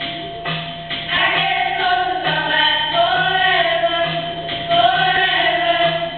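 A group of voices singing a song in long held notes.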